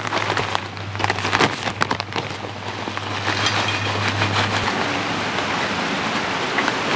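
A bag of hickory wood chips crinkling as it is handled and opened, then the chips pouring out into the electric smoker's chip pan in a steady dense patter for the rest of the time.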